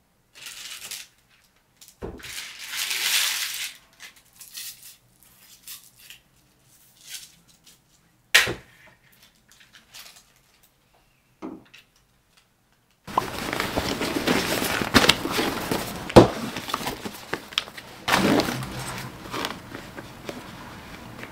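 A clear plastic carrier bag holding a drink cup crinkles in short rustles as it is handled, with light knocks on the desk and one sharp knock about eight seconds in. From about thirteen seconds in, there is continuous rustling and handling as things are packed into a canvas tote bag.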